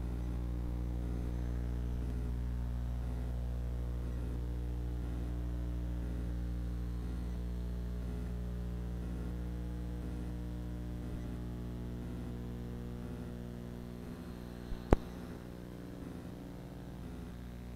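A steady low electrical hum made of several fixed tones, easing slightly in level toward the end. Near the end come two sharp clicks in quick succession, the second much louder.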